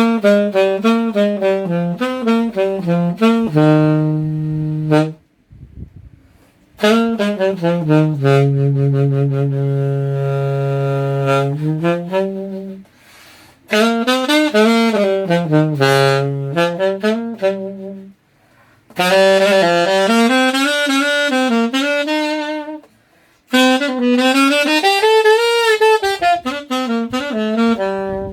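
Suzuki alto saxophone played unaccompanied, with a dry sound and no effects. It plays a slow melody in four phrases with short breaths between them, and holds a long low note in the second phrase.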